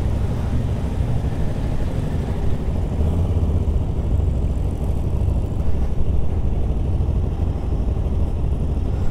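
Motorcycle engine running steadily, a low, even rumble with no rise or fall in pitch.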